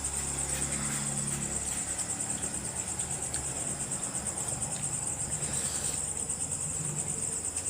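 Steady, high-pitched trilling chorus of crickets, pulsing rapidly without a break.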